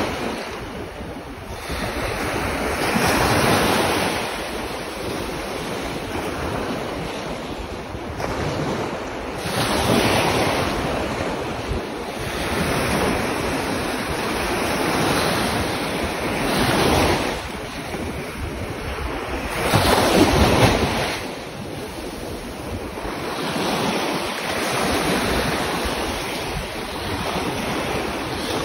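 Small waves breaking and washing over the sand in shallow surf, swelling and fading every few seconds, the loudest about twenty seconds in, with wind buffeting the microphone.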